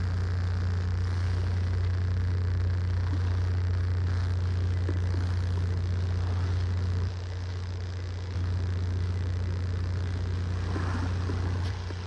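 Steady low rumble of wind buffeting the phone's microphone. It drops away abruptly for about a second some seven seconds in and again near the end.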